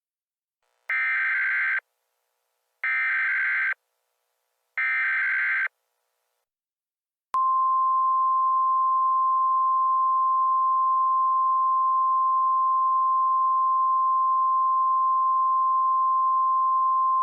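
Emergency Alert System header: three short bursts of buzzy digital data tones about a second apart, then, after a short pause, a single steady attention tone held for about ten seconds.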